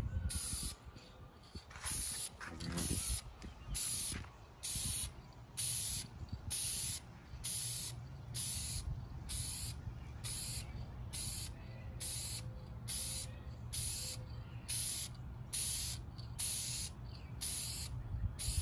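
Aerosol can of Dupli-Color vinyl and fabric spray paint hissing in short, evenly spaced bursts, a little over one a second, as the paint is laid on in light passes over a plastic interior trim panel.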